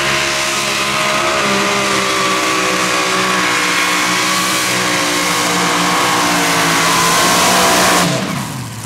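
Competition pulling tractor's engine running flat out during a pull, held at high revs with the pitch sagging slightly under load, then shut off about eight seconds in, the pitch falling as it winds down.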